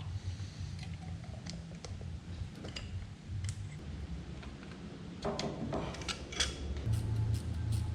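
Small metal parts being handled, giving a string of light clicks and taps with a short scrape or rattle about five seconds in, over a low hum.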